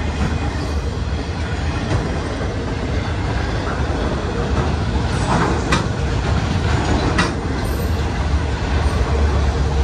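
A long freight train of autorack cars rolling past close by, its steel wheels making a steady rumble on the rails. Two short sharp sounds stand out, about five and seven seconds in.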